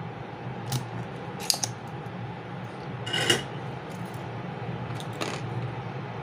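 Sharp clicks and light metallic clinks of a desoldering pump and soldering iron working a circuit board. The loudest is a snap with a short ringing about three seconds in, typical of the pump's spring-loaded plunger firing. A steady low hum runs underneath.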